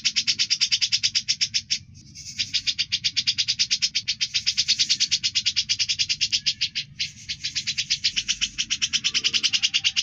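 A songbird's fast, sharp rattling trill (a 'besetan'), played as masteran recording for training caged songbirds: long runs of evenly repeated high notes, about ten a second, broken by a short pause near two seconds in and another about seven seconds in.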